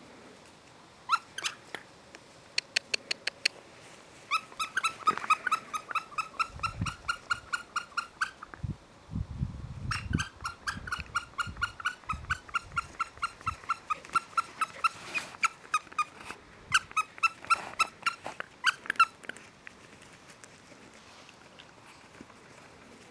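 Rough collie puppies at play: long runs of short high squeaks at about five a second, in several bursts that stop a few seconds before the end, with a low rumble underneath partway through.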